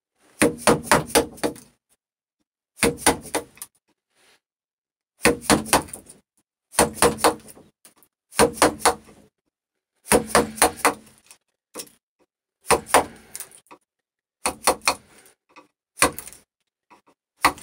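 A round wooden mallet striking a chisel, chopping out waste wood from a joint. It comes in about ten short flurries of several quick knocks each, a second or two apart.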